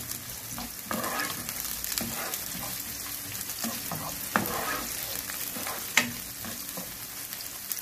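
Chopped onion sizzling in hot oil in a nonstick pan as a spoon stirs and scrapes through it, with two sharp taps of the spoon against the pan in the second half.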